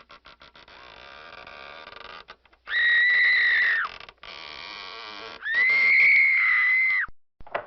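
Horror-film sound effect: an eerie textured drone with two long, high whistle-like tones over it, the first bending down in pitch as it ends, the second longer and louder.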